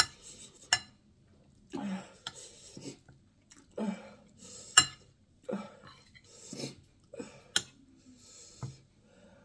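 Close-up eating sounds of jollof rice, chicken and cucumber being chewed: wet, noisy chews in separate bursts about every second or two, with several sharp clicks.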